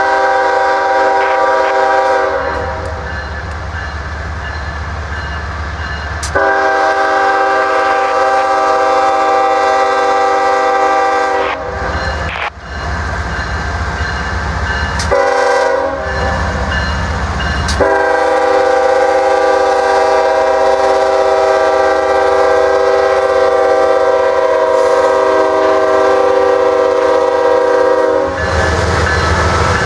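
A Norfolk Southern GE ES44DC diesel locomotive's air horn blows the grade-crossing signal. The tail of one long blast is followed by a long blast, a short one, and a final long blast of about ten seconds. Between the blasts comes the low rumble of the passing diesel locomotives.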